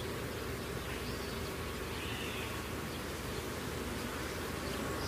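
Insects buzzing in a steady drone, an even hiss with no breaks or strikes.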